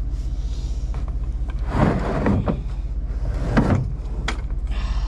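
Plastic buckets knocking and sliding on a pickup's plastic bed liner, with two heavier thumps about two and three and a half seconds in, over a steady low engine hum.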